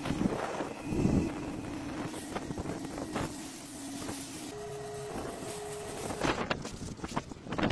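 Pressure washer running with a steady hum while spraying cleaning foam, with wind buffeting the microphone. The hum drops away about halfway, and two short higher tones come just after.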